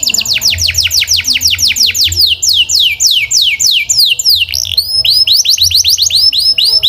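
Canary singing a fast, loud trill of repeated high falling notes, about seven a second, that gradually slows. About two-thirds of the way through it switches to a different trill of short hooked notes.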